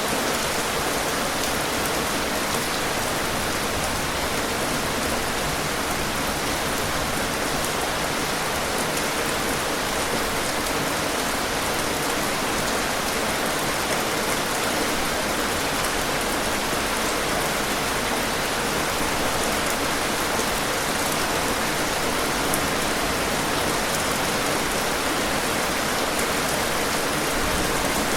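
Heavy rain falling steadily, a dense even hiss of countless drops with no let-up.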